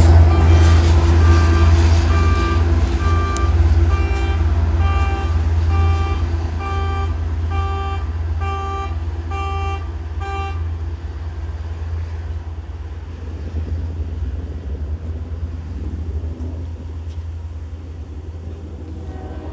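Low rumble of a departing diesel passenger train, fading steadily. Over it an electronic grade-crossing bell rings about once a second, then stops about ten seconds in.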